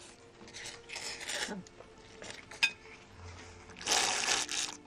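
A man slurping ramen: noisy sucking slurps of noodles in the first second and a half, a single sharp click about two and a half seconds in, then the loudest slurp near the end as broth is drunk straight from the bowl.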